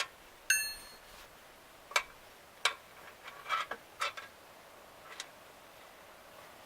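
Scattered light clicks and taps as synthetic winch rope is worked around a steel winch drum by hand, with one short metallic ring about half a second in.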